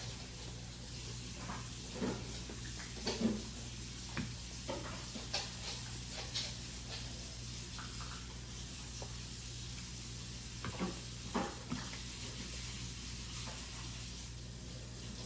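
Cutlery clinking and scraping against bowls and plates, with wet eating noises, as a meal is eaten at a table. Short scattered clicks come at irregular times over a steady low hum.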